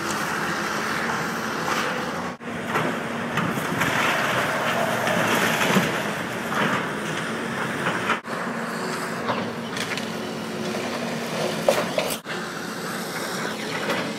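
Tracked excavator's diesel engine running steadily under load as its arm pulls down a wood-frame building, with cracking and splintering timber and clattering debris, several sharp cracks standing out.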